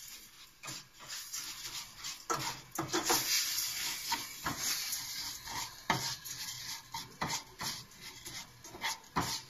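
A spoon stirring rice in hot oil, scraping irregularly against the bottom of the pan. This is the rice toasting before the broth is added for a risotto.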